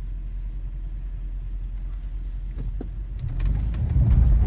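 Low rumble of a vehicle driving over a rough, muddy stream-bed track, heard from inside the cab, with a few light knocks; the rumble grows louder about three seconds in.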